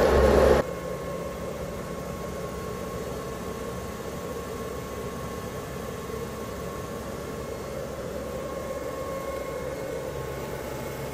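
Steady electrical hum and fan noise from a homemade 24 V to 220 V sine-wave inverter carrying about 650 W of load, with a faint steady whine. It is louder for the first half-second, then drops suddenly to a steady level.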